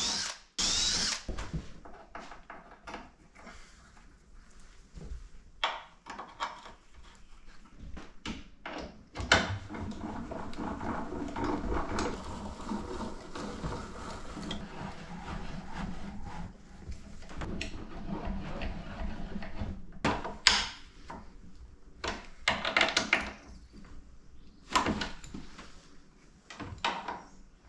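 Bolting metal corner brackets onto a wooden float frame: a cordless drill whines briefly at the start, then come scattered clicks, rattles and sharp knocks of bolts, nuts and tools being handled against the wood and brackets.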